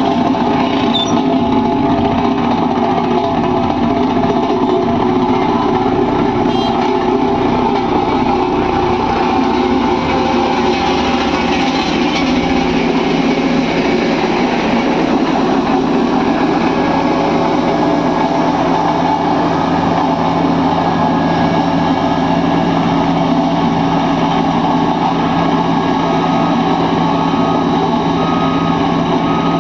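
Diesel engines of road-building machinery running steadily during wet mix macadam laying, a continuous loud drone with no breaks.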